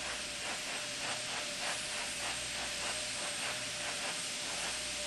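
Steady hiss with a faint steady hum tone and a faint rapid pulsing about three or four times a second: the background noise of the launch-control audio feed between countdown callouts.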